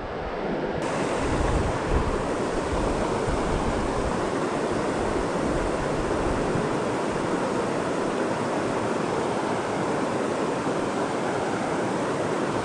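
Steady rushing of river water flowing around and past the wading angler.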